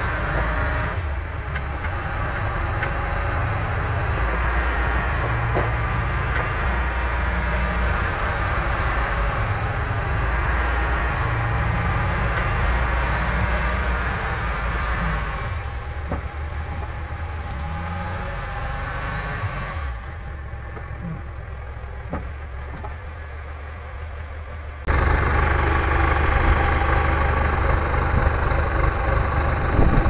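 Backhoe loader's diesel engine running with a steady low drone. It drops somewhat quieter about halfway through and comes back louder abruptly a few seconds before the end.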